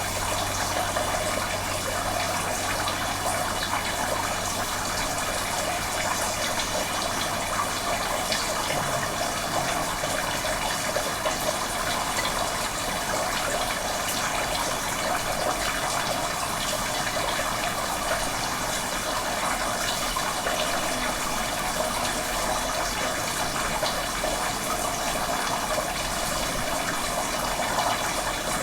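Running water, a steady, even rush with no breaks.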